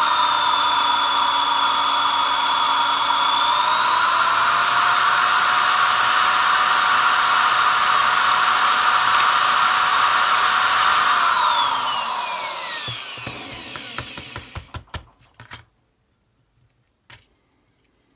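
Electric drill with a 5/64" bit running steadily as it bores a pilot hole into the rivet of a die-cast toy car. About eleven seconds in, the motor is released and its whine falls away as it spins down, followed by a few light clicks.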